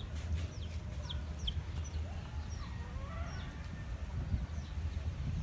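Birds calling: a string of short, high, falling chirps, with a lower, chicken-like call near the middle.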